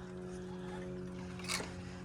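Steady low machine hum with one brief click about one and a half seconds in.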